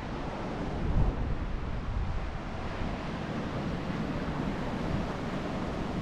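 Ocean surf washing against a rocky shore, with wind buffeting the microphone in a low, steady rumble.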